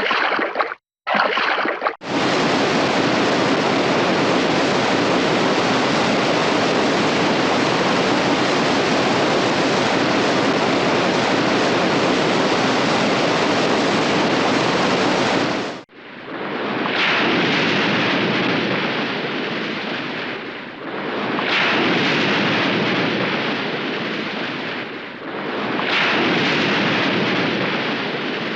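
Water sound effects: two short bursts of water noise, then a steady rushing of water that cuts off suddenly, followed by waves surging in and washing back about every four and a half seconds.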